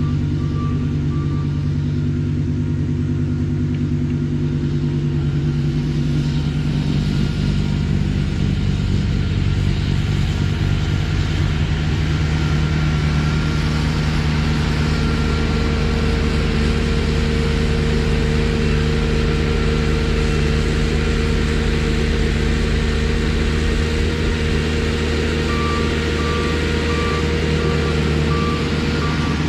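Trackless MT6 tractor's diesel engine running steadily with its front snowblower attachment; about seven seconds in, the rushing hiss of the blower throwing snow joins the engine. A reversing alarm beeps in the first second and again near the end.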